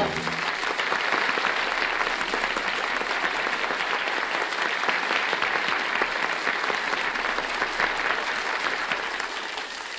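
Studio audience applauding after a sung number, a dense patter of clapping that holds steady and dies away near the end.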